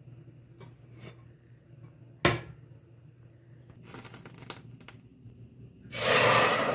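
Raw rice poured from a bowl into a stainless steel pot, a loud rushing patter of grains that starts near the end. Earlier comes one sharp clank as the pot is set down on the glass-ceramic hob, followed by a few light clatters.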